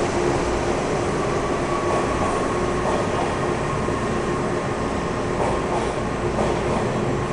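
TTC H6 subway train running through the station at speed without stopping: a steady, loud rumble of wheels on rail under a steady hum, with a few faint clicks.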